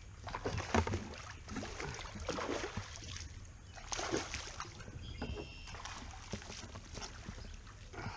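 A hooked fish thrashing and splashing at the surface beside a kayak as it is reeled in, in irregular bursts, the loudest about a second in and again around four seconds.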